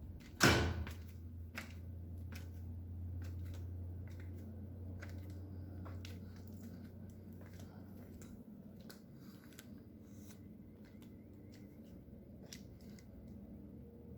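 Machinery noise from a neighbouring factory at night: a steady low hum with scattered faint clicks and knocks. A single loud thud comes about half a second in, and the hum grows weaker after about eight seconds.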